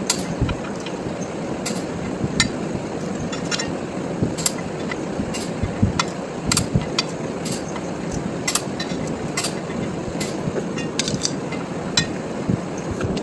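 Scattered sharp metal clicks and clinks of a socket wrench and extension on the flex plate bolts of a Corvair flat-six, over a steady background rush.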